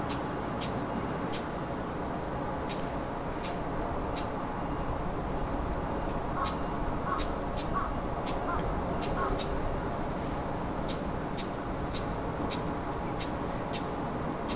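Steady outdoor background noise with short, high chirps repeating about every half second, and a quick run of five lower calls from an animal around the middle.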